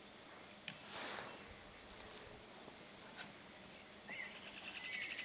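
Wild birds calling in the open: short high chirps, one about a second in and a sharper, louder one about four seconds in. Near the end a rapid, evenly pulsing trill begins.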